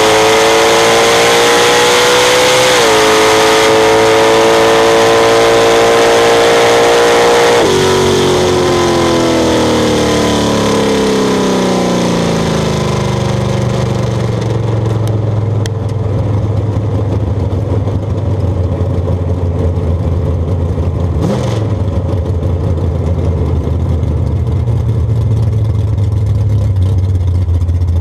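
Drag-racing vehicle's engine at full throttle and high revs, dipping briefly at a gear change about three seconds in. Around eight seconds in the throttle is lifted and the revs fall away over several seconds to a low, steady rumble as the vehicle slows down the track, with one short blip of the throttle later on.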